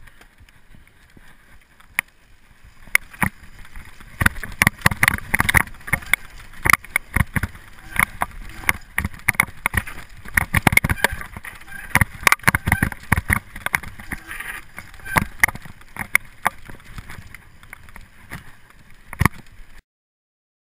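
Mountain bike rattling over a rough dirt singletrack: rapid sharp clicks and knocks from the frame, chain and bars over bumps, with the low rumble of the tyres on dirt. It starts sparse, gets dense after a few seconds, and cuts off suddenly near the end.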